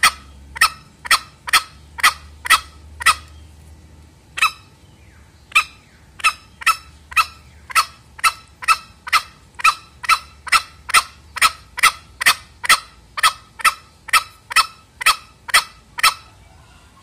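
Male green junglefowl calling in a rapid series of short, sharp notes, about two a second, with a short break about three to five seconds in. This is its lure call, used to draw in wild males.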